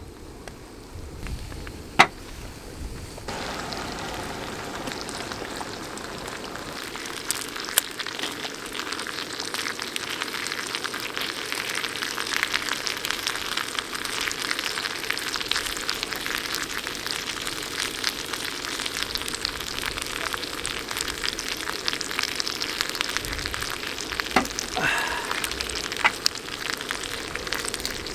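Food sizzling and crackling in a hot pan, starting suddenly about three seconds in after two sharp clicks, then carrying on steadily with a few more clicks near the end.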